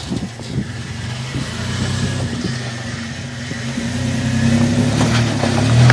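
Lifted Toyota 4Runner's engine working under load as the truck crawls up over large rocks, a steady low drone that grows louder in the second half as more throttle is given.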